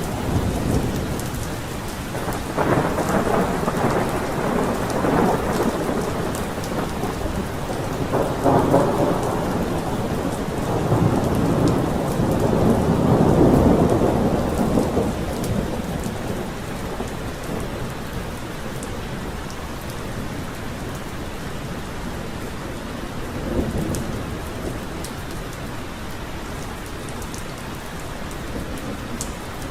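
Thunderstorm: steady heavy rain with rolling thunder that swells several times in the first half, loudest about halfway through, then a brief rumble near the end as the rain carries on alone.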